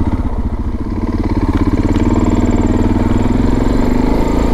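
Suzuki DR650's single-cylinder four-stroke engine running at low speed under light throttle, its firing pulses steady. It eases off slightly about a second in, then pulls evenly again.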